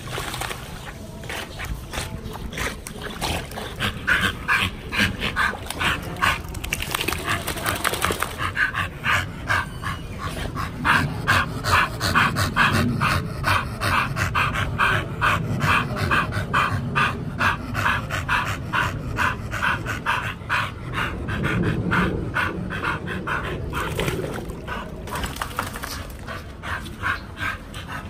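Pit bull panting hard and fast in a steady rhythm of several breaths a second, out of breath from swimming.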